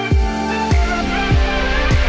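Electronic background music with a steady beat: a deep kick drum about every 0.6 seconds under held chords.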